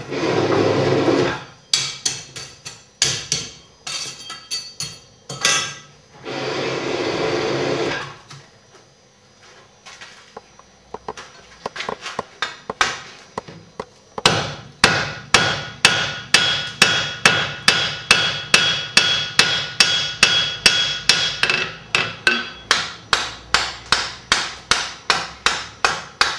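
Blacksmith's hand hammer striking red-hot iron on an anvil, spreading the metal out to form the socket of a needle bodkin arrowhead. Scattered blows early on, then from about halfway a fast, even run of ringing blows, about two or three a second. Two stretches of steady rushing noise, at the start and around six to eight seconds in.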